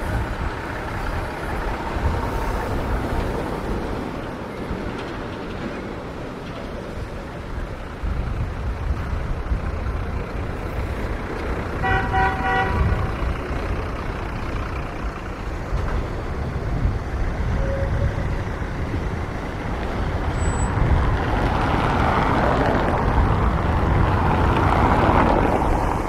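Street traffic, with a vehicle horn giving one short toot about halfway through; the traffic noise grows louder near the end.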